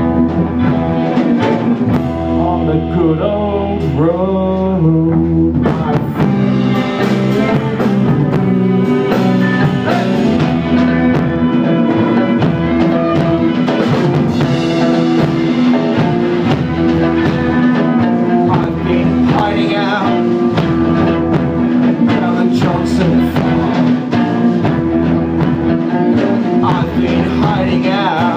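Live band playing a blues-rock song on acoustic and electric guitars with a drum kit, and a vocal line over it.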